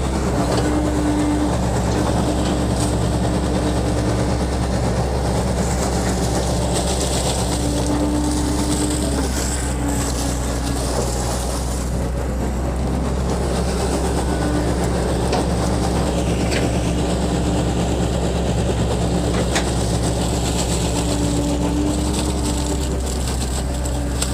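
Excavator diesel engine running steadily and under load, with a higher hum that comes and goes several times.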